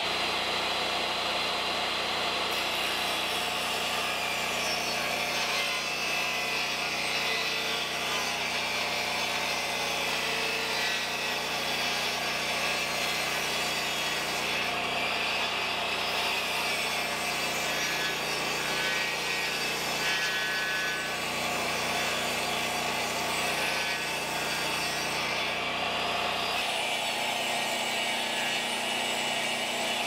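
Jobsite table saw running and ripping long boards, a steady cutting noise under load. The sound changes near the end, as its low rumble drops away.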